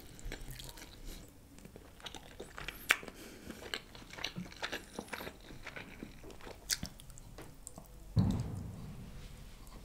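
Close-miked eating: biting into and chewing tender chicken pulled off a drumstick bone, with short clicks and crackles of mouth and meat scattered throughout. A louder, longer mouth sound comes about eight seconds in.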